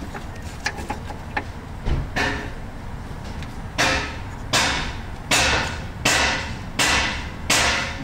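Hand tool working on metal in the engine bay: a few light clicks, then a series of six sharp metallic strokes about three-quarters of a second apart, each ringing briefly.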